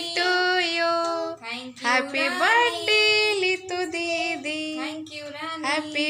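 Singing by a child's and a woman's voices, with long held notes and a few sliding phrases.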